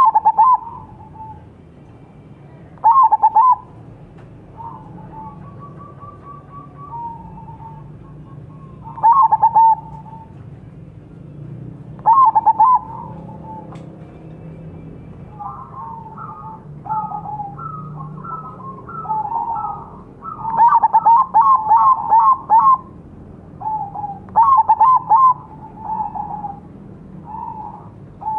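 Crossbred zebra doves (perkutut) cooing: repeated phrases of quick staccato coos a few seconds apart. From about halfway, several birds answer and overlap thickly.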